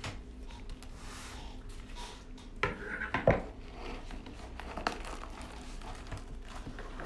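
Soft rustling and crinkling of packaging as a sealed trading-card hobby box is opened, with a few light clicks and knocks about a third and two thirds of the way in.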